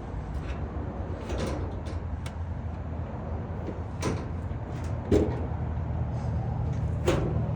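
Sheet-metal dryer cabinet panel being handled and fitted back on: a few scattered knocks and clunks, the loudest about five seconds in, over a steady low hum.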